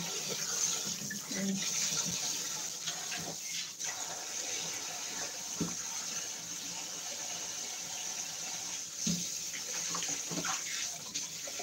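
Kitchen tap running into a stainless steel sink while split dried parrotfish are rubbed and rinsed by hand in a pan under the stream. There are a few light knocks about halfway through and near the end.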